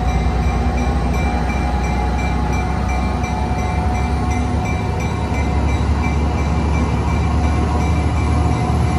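Tri-Rail commuter train moving along the platform: a steady low diesel rumble from the locomotive under the rolling noise of the bi-level coaches.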